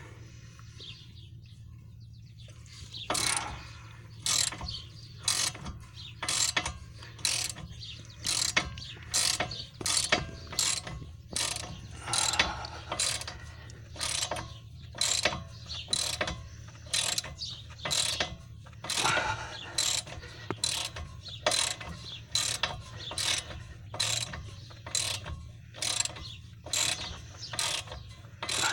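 Hand ratchet wrench working a lower rear shock mounting bolt loose, clicking in short back-and-forth strokes about once a second after a quiet first few seconds.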